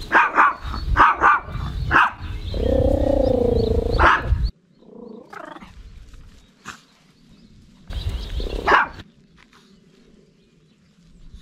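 A dog barking in a rapid string of sharp barks, then a long wavering growl. The sound cuts off suddenly a little past four seconds in, and one more loud bark comes a few seconds later.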